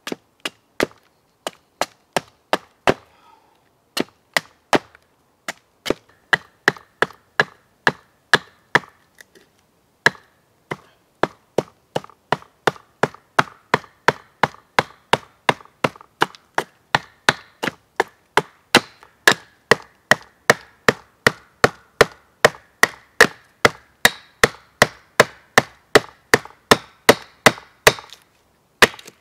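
Small hatchet hewing a hardwood stick held upright on a log: a quick, steady series of short, sharp chopping strikes, about two or three a second, with a few brief pauses in the first ten seconds.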